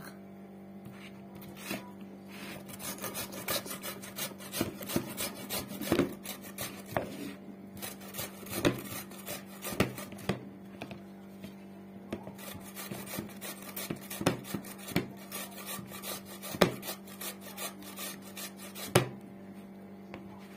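Peeled cucumber being grated on a hand-held metal grater: a long run of quick, repeated rasping strokes, with a few sharper knocks among them.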